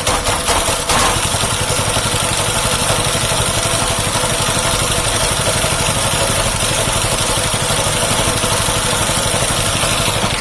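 The compressor's small engine running steadily at idle after being started. It sounds a little uneven in the first second, then settles into an even drone.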